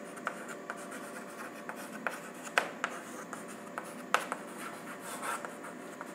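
Chalk writing on a chalkboard: short scratching strokes with sharp taps as the chalk strikes the board, the loudest taps about two and a half and four seconds in.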